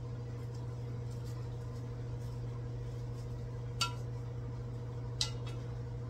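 Stainless steel frying pan clinking sharply twice, a little over a second apart, as food is laid into it by hand, each clink ringing briefly. A steady low hum runs underneath.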